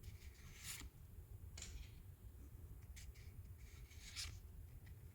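Faint handling of Pokémon booster packs and trading cards: four or five short rustles and slides of card and foil wrapper, over a low steady hum.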